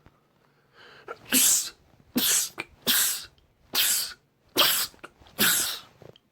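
A man sneezing six times in quick succession, a little under a second apart, each sneeze loud and short, with a softer sound leading into the first.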